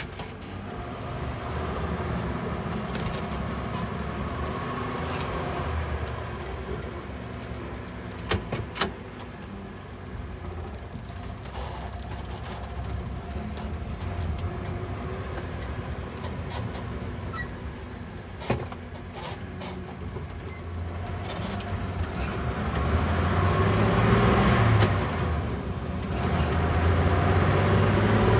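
1947 Hudson pickup driving, engine and road noise heard from inside the cab, with a few sharp clicks about a third and two thirds of the way through. Near the end the engine note climbs and gets louder as the truck picks up speed.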